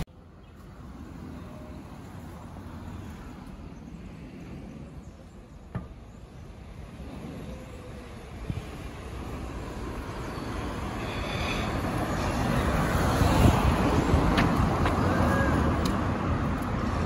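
Road traffic noise, faint at first with a couple of brief knocks, then swelling in the second half as cars pass on the road.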